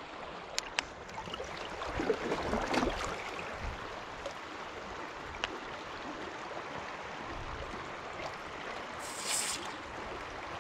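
Steady rush of river water around an inflatable raft. About nine seconds in, an aluminium drink can's tab is pulled open with a short, sharp hiss of escaping gas.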